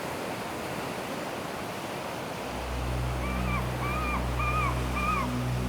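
Steady wash of ocean surf. About two and a half seconds in, low sustained music tones join it, and then a run of four short bird-like calls about half a second apart.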